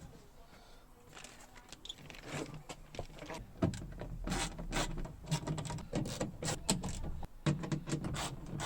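Irregular clicks, knocks and scraping from hands and tools working on the parts inside a car door. It is sparse for the first couple of seconds and busier after that.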